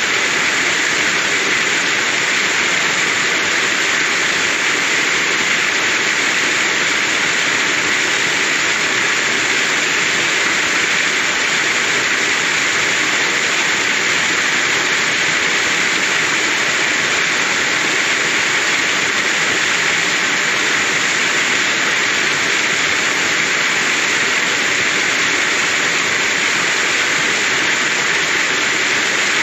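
Waterfall spilling over rock into a shallow pool: a steady, unbroken rush of falling water.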